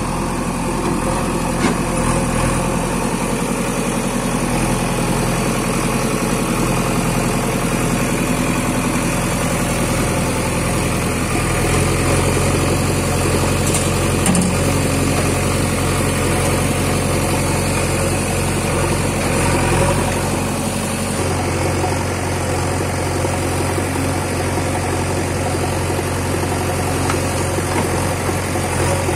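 Diesel engine of a JCB 3DX backhoe loader running under hydraulic load while loading soil, with a tractor's diesel engine running alongside. The engine note holds steady and shifts to a new pitch about twelve seconds in and again about twenty-one seconds in as the working load changes.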